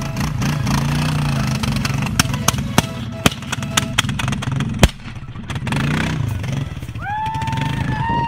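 ATV engine revving unevenly while wading through deep water, with sharp pops scattered through it. The riders put the pops down to backfiring and think the water is cooling the aluminium engine too much. A high drawn-out call rises and then falls near the end.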